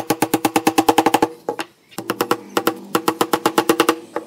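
Hammer rapidly tapping small nails into a wooden box frame: quick runs of light blows, each with a short pitched ring from the wood and nail. A pause comes about a second and a half in, then two more runs.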